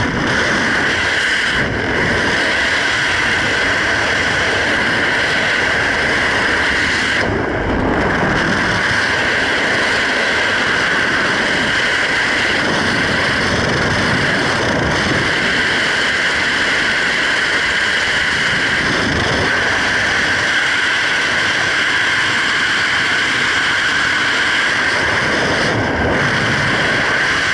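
Loud, steady wind rush of skydiving freefall blowing over a helmet camera's microphone.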